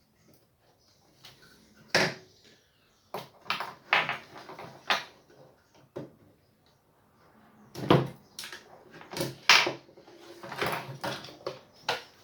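Irregular knocks, clunks and scrapes from handling the Logitech Z313 subwoofer's cabinet while taking it apart, with sharper knocks about 2 seconds in and again around 8 and 9.5 seconds.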